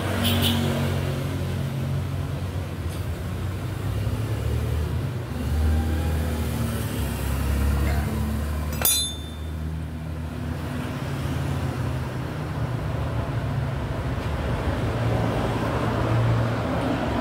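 Low rumble of motor-vehicle engines running past in road traffic, rising and easing as vehicles go by. A single sharp click sounds about nine seconds in.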